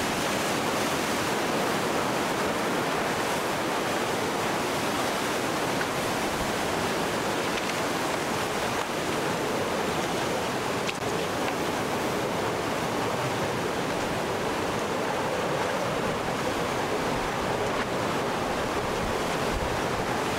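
Hurricane storm-surge surf and floodwater rushing, with strong wind, making a steady, unbroken wash of noise.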